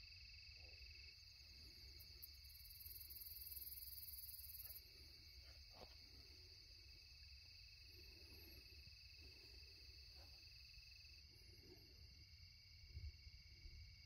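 Faint night chorus of crickets: a steady high trill throughout, and a second, lower pulsing trill that stops about two-thirds of the way in. Soft rustles and a small bump near the end.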